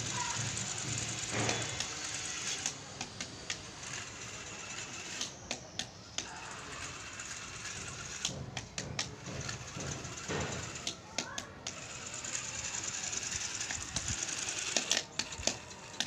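Homemade remote-control truck driving, its DC gear motor and homemade gearbox running with a clattering rattle and many irregular clicks.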